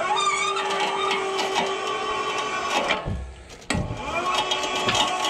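Electric winch motor running and hauling on a cable. It whines up to a steady pitch, stops about three seconds in, then starts again with a rising whine a moment later.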